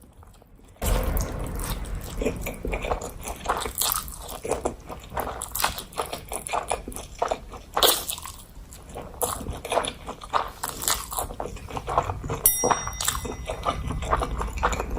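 Close-miked eating of crunchy food: a dense, irregular run of crisp bites and chewing crunches, starting about a second in.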